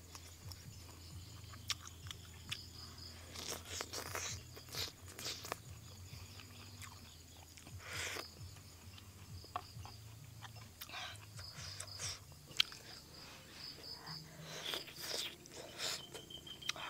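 Close-up eating sounds: a person chewing and biting fish soup with crunchy water mimosa and chili, in irregular crunchy bites.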